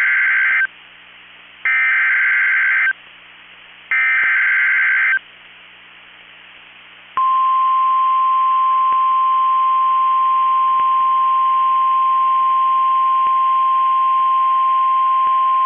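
NOAA Weather Radio SAME alert header: the tail of one digital data burst and two more full bursts, each about a second of harsh warbling with short gaps between. From about seven seconds in, the steady single-pitch 1050 Hz Weather Radio warning alarm tone sounds, the signal that a new warning, here a severe thunderstorm warning, is about to be read.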